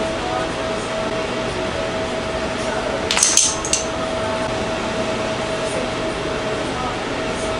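Steady workshop background hum with a constant tone; about three seconds in, a short metallic clinking rattle with a second click just after, as a small metal primer can and its dauber are handled while priming PVC pipe fittings.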